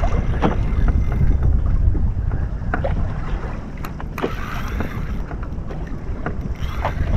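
Wind buffeting the action-camera microphone on an open-ocean kayak, with a steady low rumble of wind and water and a few light clicks and knocks.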